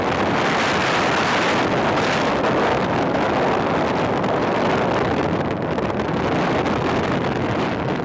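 Loud, steady wind rushing over a microphone held out of the window of a moving car, mixed with the car's road noise.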